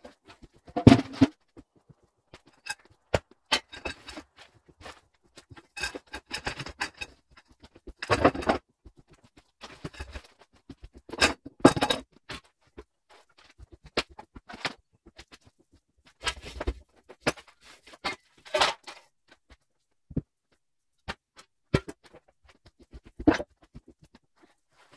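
Irregular knocks, scrapes and clattering of loose material being handled, dragged and dropped by hand, as when clearing debris. Sharp knocks come about a second in and again around the middle, with bursts of scraping and rustling between stretches of quiet.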